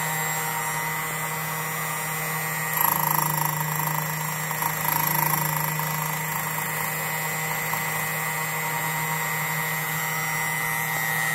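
Motor of a Jensen Micro-Dial key code cutting machine running steadily with a hum and a high whine. Two brief louder, grittier spells about three and five seconds in are the rotary cutter biting a cut into a B86 ignition key blank.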